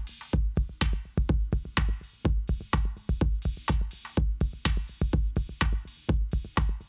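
Electronic drum loop playing from Native Instruments Maschine: a steady kick drum about twice a second with bright hi-hats between the kicks.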